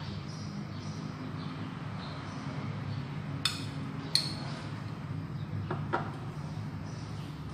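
Metal spoon clinking against glass twice, about a second apart, then two softer knocks, over a steady low hum.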